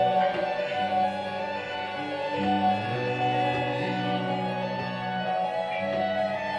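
Live band music: sustained tones held over a low line that steps to a new note every second or so.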